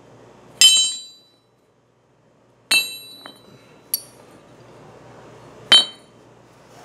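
Forged steel chain hooks and clevises clinking as they are handled and set down on a concrete floor: three sharp metallic clinks with a short ring and one lighter one, the loudest about half a second in and near the end.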